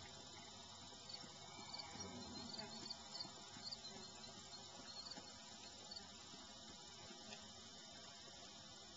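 Near silence: a faint outdoor background with a run of soft, short high chirps through the middle, and a few faint soft thuds.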